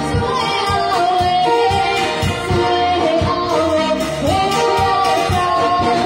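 A woman singing a slow song into a microphone over a PA, her held notes wavering, with amplified backing music keeping a steady beat.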